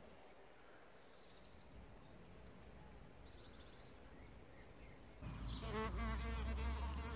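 A few faint high chirps over a quiet background, then about five seconds in a bee's flight buzz cuts in suddenly and loudly, its pitch wavering as it flies close.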